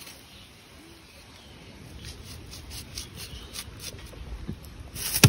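Serrated sickle blade rasping against a green mango in repeated light strokes, about three a second, starting about two seconds in and getting louder near the end.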